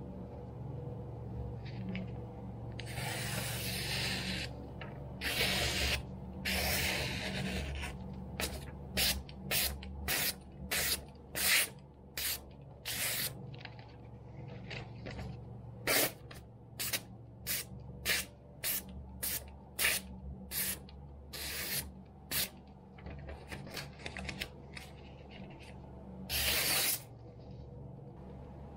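A sharpened kitchen knife slicing through a magazine page as a sharpness test: a few longer, drawn cuts, then a run of about twenty short, crisp slices in quick succession.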